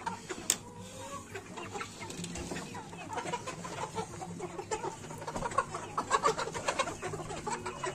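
Flock of young, half-grown chickens clucking and calling, with many short overlapping calls that grow busier after a few seconds. A single sharp click sounds about half a second in.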